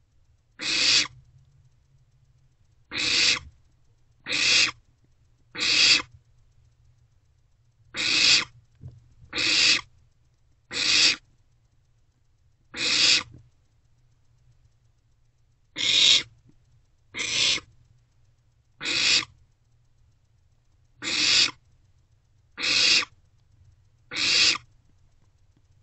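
Barn owl owlets giving repeated raspy hissing begging calls, each about half a second long, one every one to two and a half seconds.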